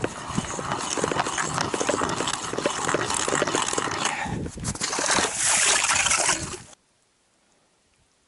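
Footsteps crunching through snow, a dense run of crisp crunches. They stop abruptly about seven seconds in, leaving near silence.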